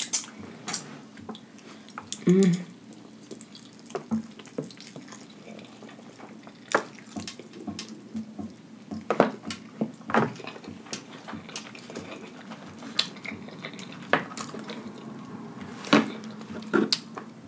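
Close-up eating sounds of a person slurping and chewing instant ramen noodles, with irregular wet mouth clicks and smacks throughout. A short hum comes about two seconds in.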